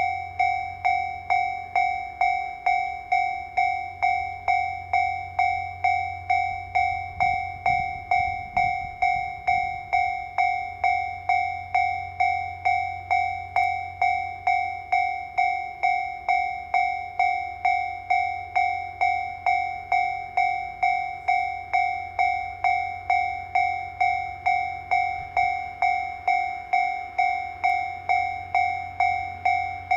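Japanese railway level-crossing alarm ringing, an electronic bell struck evenly about twice a second without a break. Beneath it a low steady rumble swells briefly about eight seconds in.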